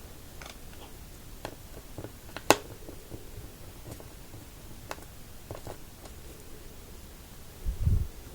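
Scattered small clicks and taps of a precision screwdriver working the tiny screws inside an iPod touch 4th generation. One sharper click comes about two and a half seconds in, and a low thump comes near the end.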